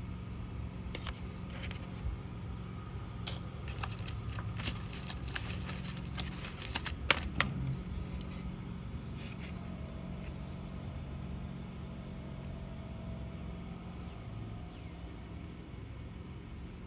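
90% silver Roosevelt dimes clinking against each other as they are handled and picked out of an opened paper bank roll: a quick run of sharp metallic clicks in the middle, the loudest about three seconds in and near seven seconds in, over a steady low background hum.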